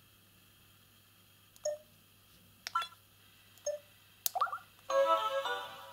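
Samsung SGH-Z130 mobile phone: two short key beeps about two seconds apart and a few sharp button clicks, then a polyphonic ringtone melody starts near the end.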